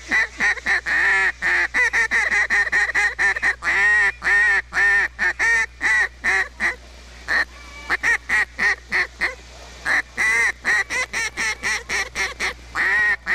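A hand-blown duck call worked by an expert caller in runs of quacks and fast chattering notes, imitating a bunch of ducks. The notes come in strings with short breaks between them.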